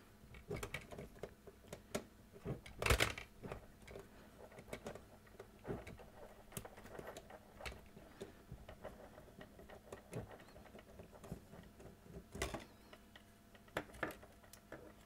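A 3/16 nut driver backing screws out of a GM Delco car radio's sheet-metal chassis: scattered light metallic clicks and scrapes, with two sharper clicks about three seconds in and again near the end.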